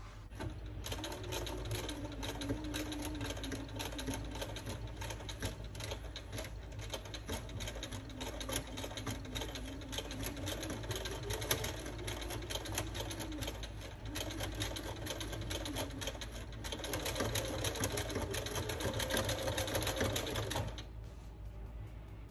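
Electric sewing machine stitching a seam through wool cross-stitch canvas: rapid needle strokes over a motor whine that rises and falls with speed. It starts just under a second in, runs fastest in its last few seconds, and stops near the end.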